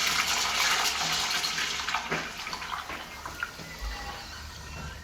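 Old Mansfield urinal flushing: a steady rush of water that tapers off over a few seconds as the flush ends.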